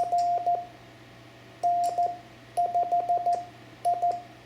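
Morse code (CW) tone keyed in dits and dahs, in several short groups with gaps between them. It is the other station's reply in the contact, heard from the ham radio receiver.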